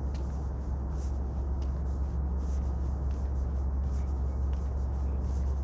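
Footsteps at a walking pace, about two a second, faint and scratchy, over a steady low rumble.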